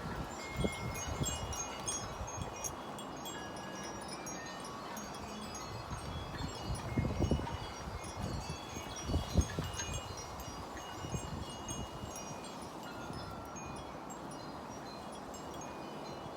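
Wind chimes ringing on and off in the wind, many short clear tones at different pitches. Gusts of wind rumble on the microphone, strongest a little past the middle.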